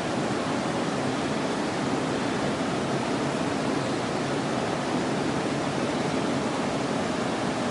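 Fast river current rushing steadily, a continuous even hiss of flowing water.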